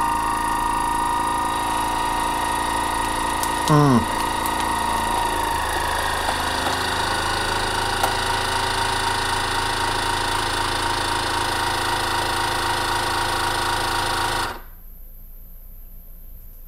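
Countertop vacuum sealer's pump running steadily, drawing the air out of a bag of pork belly, with a brief louder sound falling in pitch about four seconds in. The pump cuts off suddenly near the end once the bag is pulled tight.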